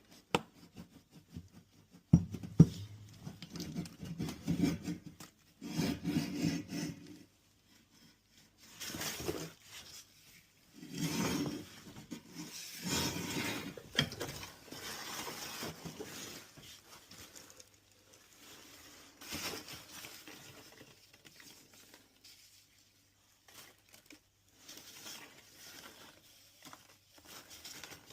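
A hand tool scrapes and rubs deposits off the inside of an old water heater in irregular bursts, with a few sharp knocks about two seconds in.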